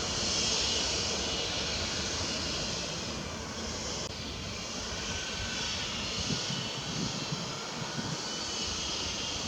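Steady drone of an aircraft engine with a rushing hiss.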